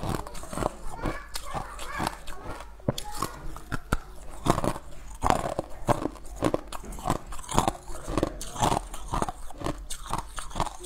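Ice cubes being bitten and chewed close to the microphone: a run of sharp, irregular crunches, a few each second.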